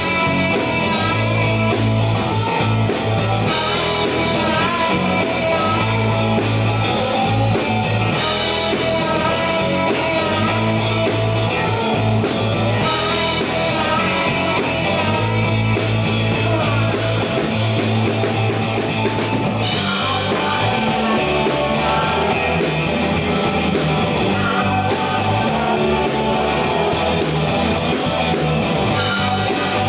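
Live rock band playing: electric guitars, electric bass and drum kit, with a male lead singer. The music changes section about two-thirds of the way through.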